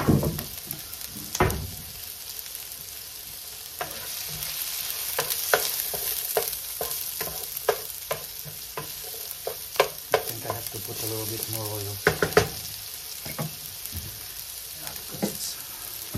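Chopped onion and garlic sizzling in a nonstick frying pan. A wooden spoon stirs them, knocking and scraping against the pan in many sharp taps.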